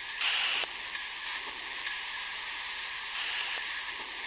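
Static hiss from a portable radio being tuned, brightening briefly twice, a fraction of a second in and again past the middle, with a few faint clicks.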